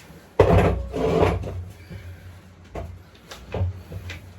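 A part being shifted on a workbench: a loud scraping slide lasting about a second, then a few lighter knocks as it is set down and handled.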